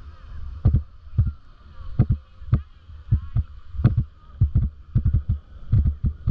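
Footsteps walking on sand, dull low thumps about two a second, over a low rumble of wind on the microphone.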